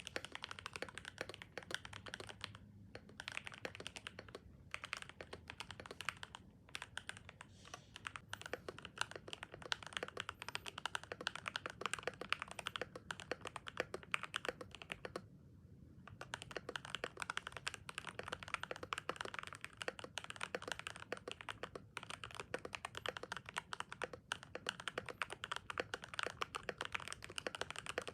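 Fast continuous typing on a Royal Kludge RK100 mechanical keyboard with linear Gateron Pro Silver switches, tape-modded and foamed, with a few short pauses, the longest about 15 seconds in.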